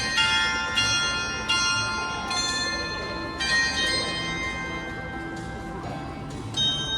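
The Märchen Chime karakuri clock's Dutch-made chime bells playing a tune, each struck note ringing on. The notes come every half second or so at first, then thin out to long ringing tones, with one last strike near the end.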